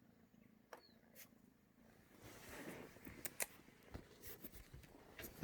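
Faint rustling with a few sharp clicks, getting louder about two seconds in.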